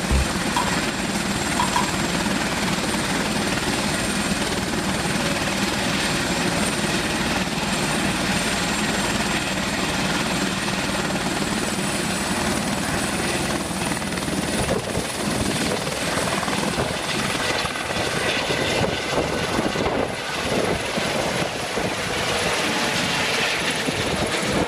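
Helicopter running: steady rotor and engine noise with a thin high whine that rises slightly about halfway through.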